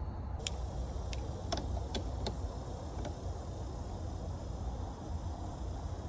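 A handful of short, sharp metallic clicks in the first half, from a ring terminal and nut being worked onto the battery's positive post by hand. A steady low rumble underlies everything.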